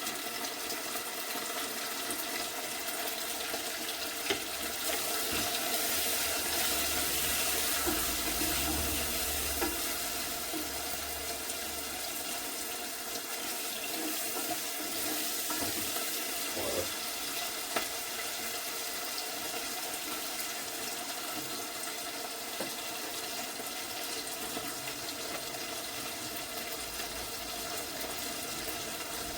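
Fish and onions sizzling as they fry in olive oil, a steady hiss that grows a little louder about five seconds in and then settles.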